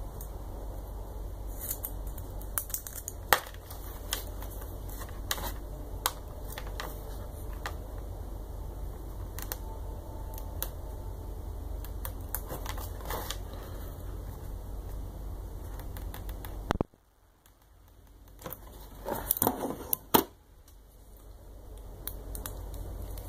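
Workbench handling sounds: scattered sharp clicks, taps and light rustling of small parts and packaging, over a steady low hum. The hum cuts out suddenly about two-thirds of the way through and fades back in, with a short run of clicks and rustles just after.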